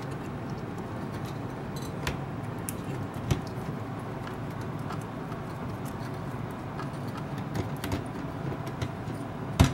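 4-pin CPU power connectors and their sleeved power-supply cables being handled and pushed into a motherboard's ATX 12V header, with a few sharp plastic clicks, the loudest near the end, over a low steady hum.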